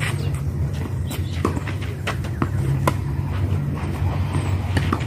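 Tennis rally on a clay court: sharp pops of rackets striking the ball, with softer ball bounces and footfalls between them, over a steady low hum.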